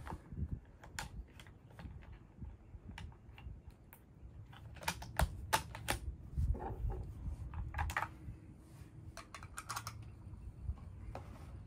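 Scattered small clicks and knocks of a bolt-action rifle and gear being handled on a wooden shooting bench, a few sharper ones about five to eight seconds in.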